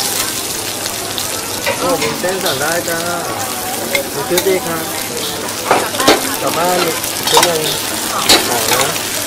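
Prawns sizzling in small metal pans over gas burners, a steady frying hiss. Several sharp metal clinks of tongs and pans come in the second half.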